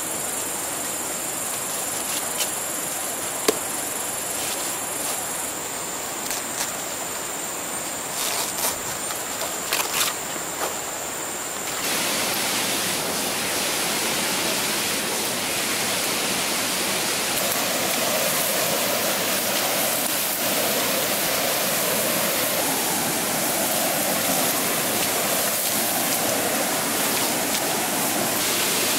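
A steady high insect drone with a few light clicks and knocks, then, about twelve seconds in, the even rush of a small waterfall spilling into a pool, which carries on to the end.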